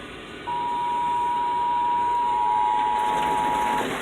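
Emergency Alert System attention signal: a steady two-note tone that starts about half a second in and cuts off just before the end, over a steady hiss, ahead of a National Weather Service severe thunderstorm warning.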